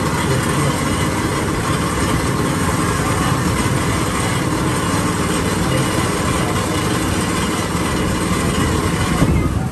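Street traffic noise: small engines running and idling, a steady mix with no pauses.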